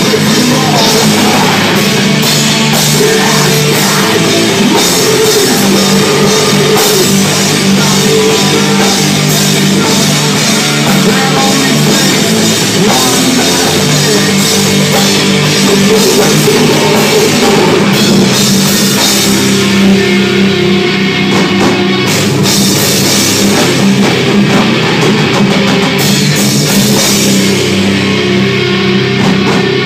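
Live heavy rock band playing loud, with electric guitars and a drum kit pounding out a steady beat.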